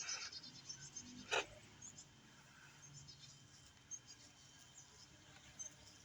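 A faint, steady high-pitched tone, with faint insect chirping. A single sharp click comes a little over a second in.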